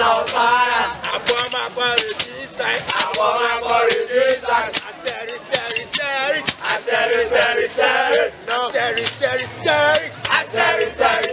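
A song with a male singing voice over music with frequent sharp percussive hits and a recurring low bass.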